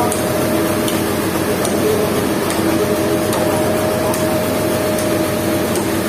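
Sawmill machinery running, a steady mechanical drone with a constant hum.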